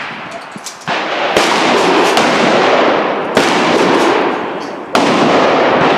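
Several shotgun blasts from the firing line, one after another, each followed by a long echo.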